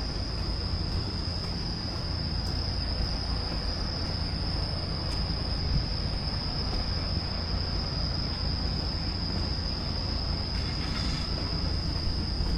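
Steady rush of falling water, with an unbroken high-pitched insect trill over it.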